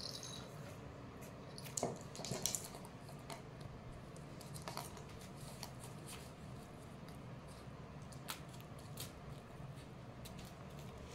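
Scattered light taps and clicks from kittens batting a plastic toy ball on a tile floor, a cluster about two seconds in and single ones later, over a steady low hum.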